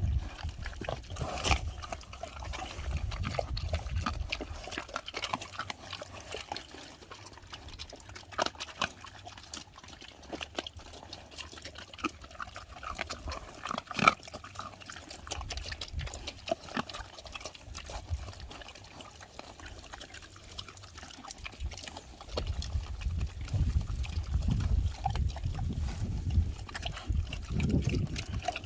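Pigs eating wet fruit and vegetables: irregular wet chewing, crunching and smacking, with stretches of low rumbling near the start and in the last several seconds.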